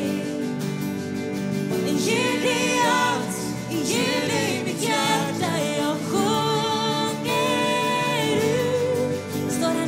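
Live worship band playing a Swedish worship song: a woman sings the lead over acoustic guitar and band, with long held notes.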